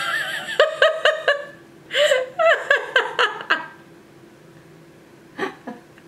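A person laughing in quick repeated bursts, two runs of laughter over the first few seconds, then quiet with a couple of short breaths near the end.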